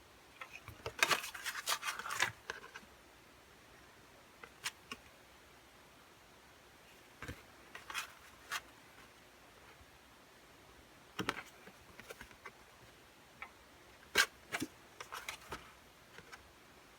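Handling of thin cardboard album picture cards: a patch of paper rustling about a second in, then scattered light taps and clicks as the cards are moved and set down.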